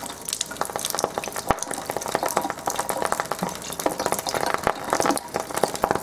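Rapid, irregular crackling and popping from a lighter flame held in a thin stream of 9.5 pH ionized alkaline water from a water ionizer, over the hiss of the running stream. The uploader attributes the pops to dissolved hydrogen in the water.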